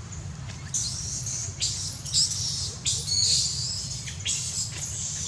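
Baby long-tailed macaque screaming: a string of shrill, high-pitched screeches, each under a second long, starting just under a second in, over a steady low rumble.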